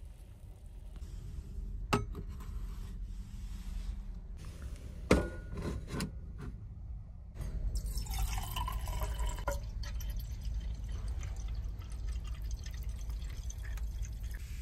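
A few sharp clicks and knocks, then liquid pouring into a stainless steel mug from about seven seconds in, first from a glass bottle and then from a plastic bottle.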